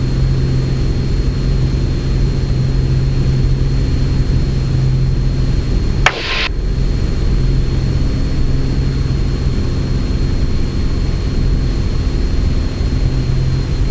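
Piper Arrow's single piston engine and propeller running steadily at takeoff power during the initial climb, heard as a steady low drone inside the cabin. About six seconds in there is a brief burst of hiss.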